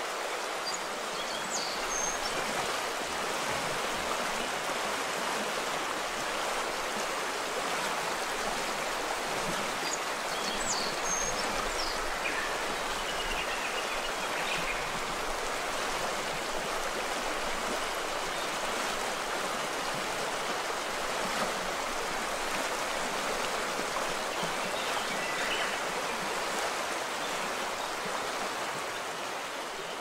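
Azusa River, a shallow mountain river, rushing steadily over stones.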